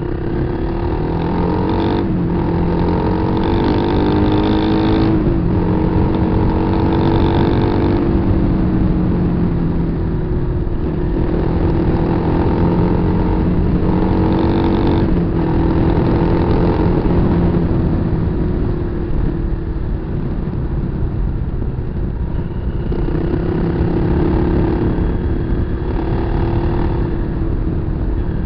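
Kawasaki KLR250's single-cylinder four-stroke engine running under way, its pitch repeatedly rising and dropping back as the throttle is worked and gears change.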